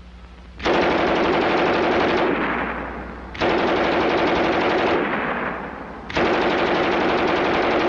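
German MG 34 machine gun firing three long bursts of very rapid automatic fire, each about a second and a half long, with a short echoing tail after each burst.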